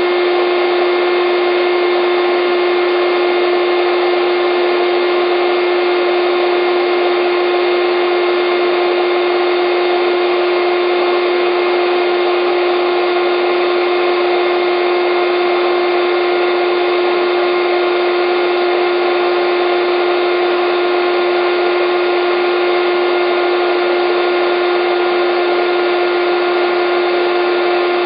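Electric air bed pump running steadily: a continuous motor hum and rush of air with one strong, steady pitched drone, unchanging throughout.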